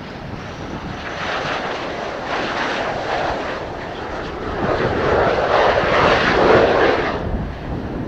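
Twin General Electric F404 turbofan engines of an F/A-18C Hornet on landing approach, passing close. The jet noise builds, is loudest about five to seven seconds in, then drops off sharply. Low wind rumble on the microphone runs underneath.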